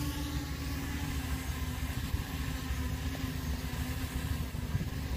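Holy Stone HS720E quadcopter's propellers humming as it descends and settles onto the water, the hum sinking slightly in pitch. Strong wind rumbles on the microphone underneath.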